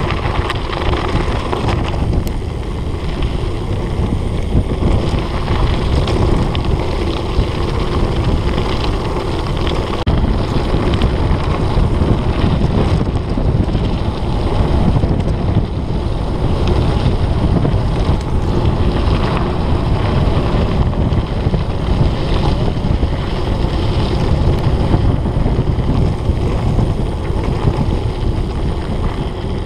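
Wind buffeting the microphone of a camera riding on a mountain bike descending fast on a dirt road, over the rumble of the tyres and small knocks and rattles from the bike on the rough surface.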